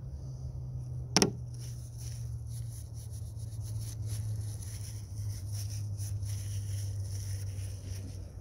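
Quick, irregular scratchy rubbing strokes of oil painting, brush and paint worked against a surface, starting after a sharp click about a second in. A steady low hum runs underneath.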